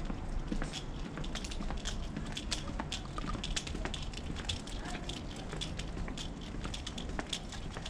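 Walking footsteps and camera handling noise: irregular crackling ticks, several a second, over a steady low rumble.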